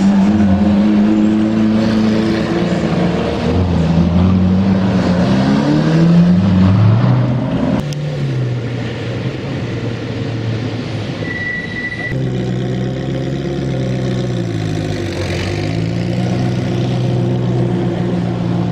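Three supercars accelerating away in turn, their engine pitch falling and climbing: a Lamborghini Aventador's V12, then after a cut about eight seconds in a Ferrari 488's V8, then from about twelve seconds a Ferrari F40's twin-turbo V8.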